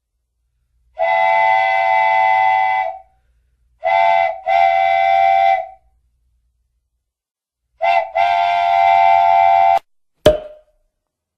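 Cartoon steam-train whistle effect: a long toot, then two pairs of a short and a long toot, each a steady chord of several notes. A single sharp knock comes near the end.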